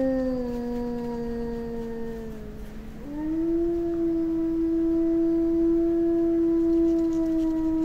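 European grey wolf howling: one long howl that slides slowly down in pitch and fades, then about three seconds in a new howl that rises quickly and is held steady at a higher pitch.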